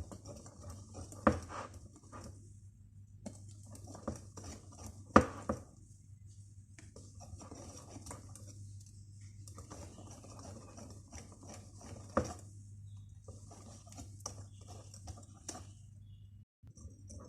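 Cake batter being stirred by hand in a mixing bowl: stretches of scraping and stirring, with a few sharp clinks of the utensil against the bowl, the loudest about five seconds in.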